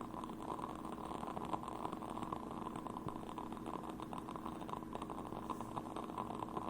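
Burning candles crackling: a dense run of small, irregular clicks and pops.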